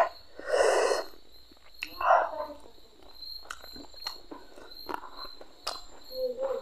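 Close-up eating sounds: chewing, lip smacks and small wet mouth clicks as pieces of fried fish are eaten by hand. Two louder breathy noises come in the first two and a half seconds, over a faint steady high-pitched tone.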